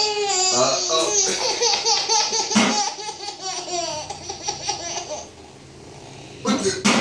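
Toddler laughing hard with a mouthful of grilled cheese: a long run of high-pitched laughter for about five seconds, a short pause, then another brief burst of laughing near the end.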